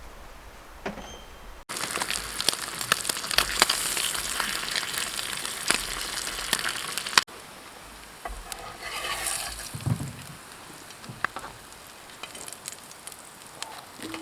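Food sizzling and spitting in a frying pan, dense with sharp pops. It starts suddenly about two seconds in and cuts off abruptly a few seconds later, leaving a quieter background with a few soft knocks.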